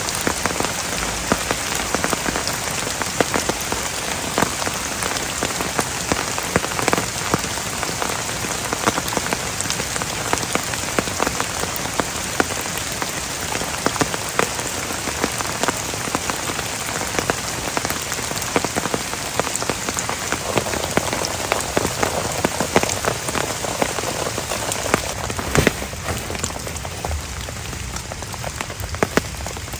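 Heavy rain falling steadily, a dense hiss dotted with many sharp individual drop hits, easing slightly near the end.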